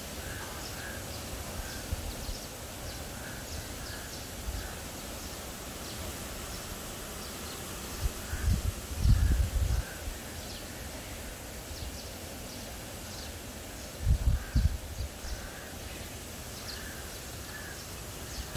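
Birds calling in the background, short calls coming in twos and threes every few seconds over steady outdoor noise. Two spells of low rumble, about eight and fourteen seconds in, are the loudest sounds.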